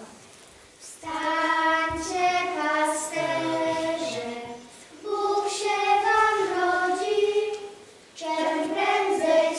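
Children's voices singing a melody together in three phrases, with short pauses for breath between them; the singing begins about a second in.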